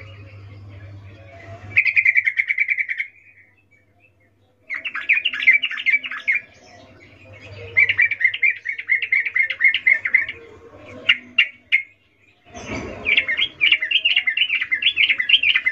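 Female yellow-vented bulbul (trucukan) calling in its breeding-season 'ngecuplik' call: quick chattering runs of notes in five phrases with short pauses between, a few single notes around eleven seconds in. A dull thump about twelve and a half seconds in.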